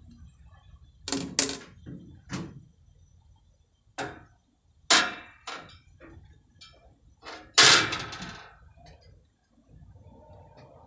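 A string of sharp knocks and clanks, about seven over several seconds, the loudest near the end, from hand tools and metal parts being handled during work on the fuel feed pump.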